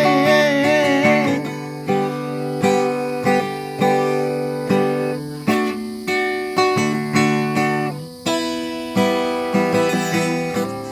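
Acoustic guitar strumming chords in a slow, even rhythm, a fresh strum roughly every second. A sung note held with vibrato dies away about a second in.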